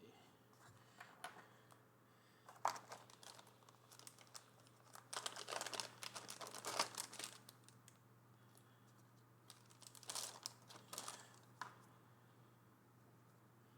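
Plastic packaging crinkling and rustling, with small clicks, in three short bouts as scanner accessories are unwrapped.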